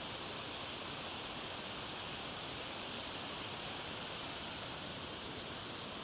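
Steady rushing of a waterfall, an even hiss that does not change.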